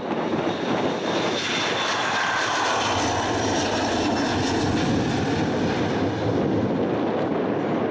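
Boeing 737-300's two CFM56-3 turbofan engines at takeoff thrust as the jet lifts off and climbs past: a loud, steady roar with a whine that falls in pitch as it goes by.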